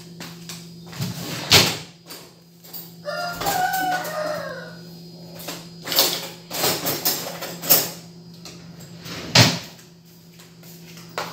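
A rooster crows once, about three seconds in: one call of a couple of seconds that falls in pitch at the end. Sharp knocks and clatters come before and after it and are the loudest sounds, over a steady low hum.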